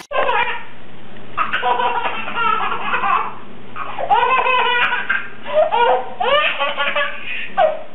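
Baby belly-laughing in several bouts of high giggles.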